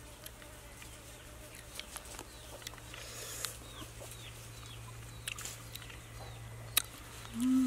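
Soft clicks and smacks of fingers mixing a salad in a steel bowl and of chewing, over a steady low hum, with faint bird calls chirping in the middle. Near the end comes a short, louder closed-mouth "mmm" of relish.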